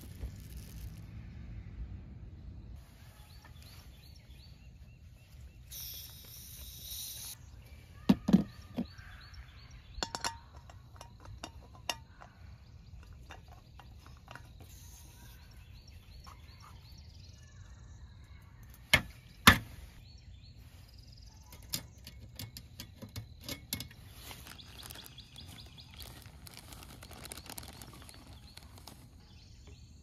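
Camp food preparation: scattered clinks, clicks and knocks of containers, lids and bottles handled on a metal camp table, the loudest knocks about 8 and 19 seconds in, with a brief hiss about six seconds in. Behind it a steady outdoor background with faint birdsong.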